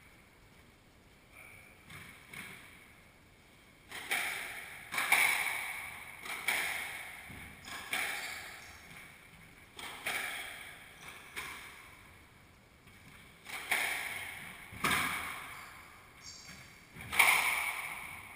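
Squash rally: the ball struck by rackets and smacking off the court walls, sharp echoing hits about once a second, starting about four seconds in, with the loudest hit near the end.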